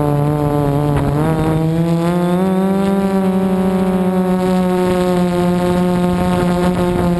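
Multirotor drone's electric motors and propellers running with a steady buzzing whine. The pitch dips briefly about a second in, then rises and holds a little higher as the throttle changes.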